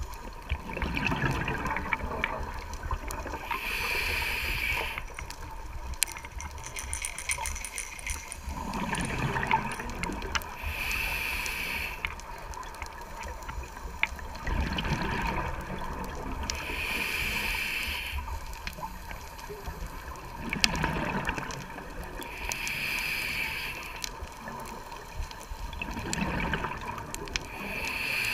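Scuba diver breathing through a regulator underwater: the bubbling rush of an exhalation, then a couple of seconds later the hiss of an inhalation, repeating about every six seconds for five breaths.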